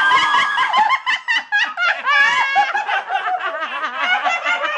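Loud, high-pitched laughter in quick repeated bursts, carrying on without a break.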